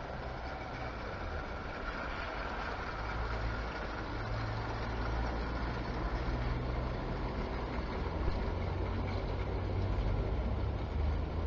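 Electric O gauge model locomotive and its goods wagons running along garden track: a steady low motor hum with the rumble of wheels on the rails, slowly growing louder as the train comes nearer.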